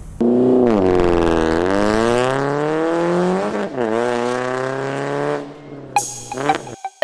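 Modified Proton Iriz hatchback accelerating away through its aftermarket exhaust. The engine note climbs, drops at an upshift about three and a half seconds in, then climbs again before easing off, with two sharp pops near the end.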